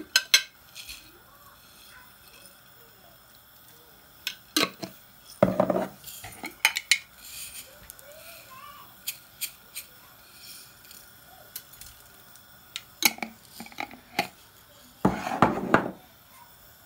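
Glass spice jar and kitchenware being handled at a stockpot: scattered clinks and knocks, with a longer rattle about five and a half seconds in and another near the end.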